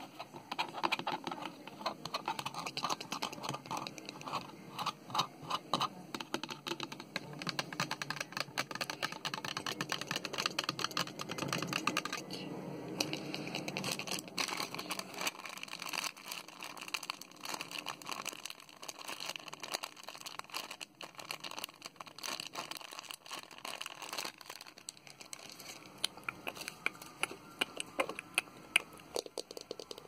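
Long fingernails tapping and scratching quickly on hard plastic objects, a dense run of light clicks and scrapes. The sound changes character about twelve seconds in, and again a little before the end, as the nails move on to a different object.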